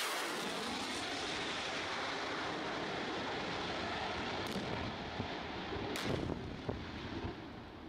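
Fighter jets flying low overhead with a steady roar, followed in the second half by a row of pyrotechnic charges going off in several sharp blasts.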